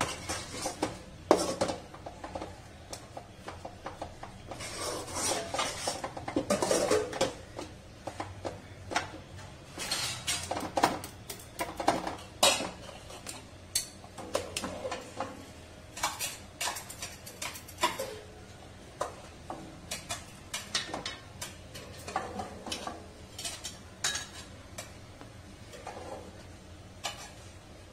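Metal spatula scraping and knocking against an aluminium kadai as thick, cooked-down semolina kichadi is stirred and turned, in irregular scrapes and clinks.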